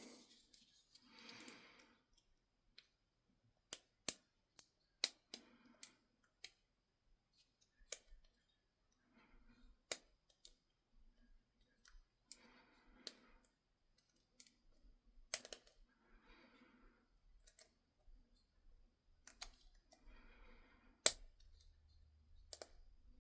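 Lock pick and tension wrench working inside a small Abus 30 mm pin-tumbler padlock: sparse, sharp metallic clicks and taps at irregular intervals as the pins are probed and set.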